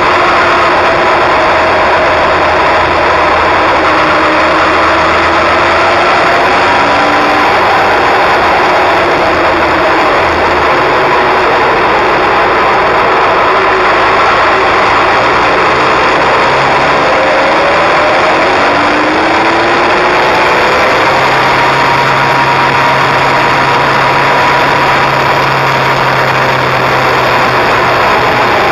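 Kawasaki inline-four sport motorcycle engine and exhaust on the move, heard close to the silencer, its revs rising and falling again and again through the bends over a steady rush of wind.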